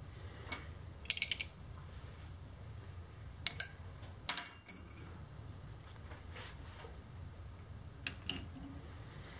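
Steel parts of a milling machine's gear-type oil pump clinking against each other and the vise as they are handled and set down. There are a few sharp clinks with brief ringing, in small clusters about a second in, around three and a half to five seconds in, and again near the end.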